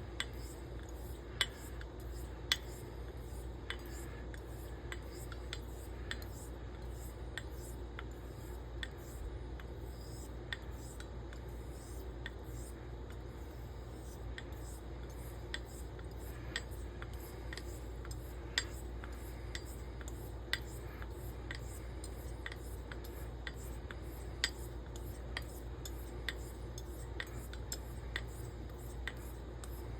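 Straight razor being stroked back and forth on a wet coticule whetstone with water: a faint steady rubbing, with light sharp clicks of steel on stone about once or twice a second as the blade is worked and turned.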